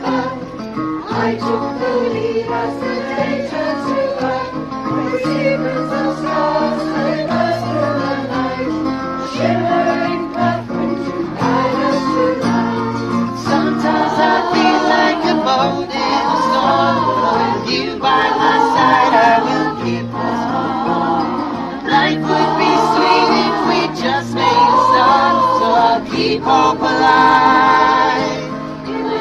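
Choir singing a song together with acoustic guitars strumming along.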